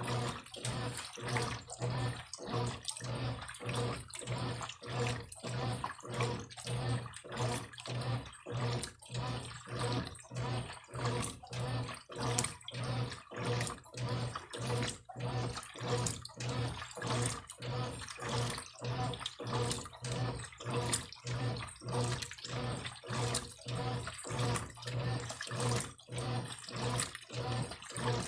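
Brastemp Eletrônica top-loading washing machine agitating a load of clothes in water: the motor hum and water swish rise and fall in a steady back-and-forth rhythm, about two strokes a second.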